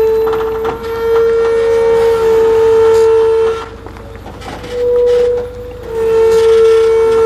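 A horn sounding in long, steady blasts, each held for one to three seconds with short gaps between them, and one brief, slightly higher note around five seconds in.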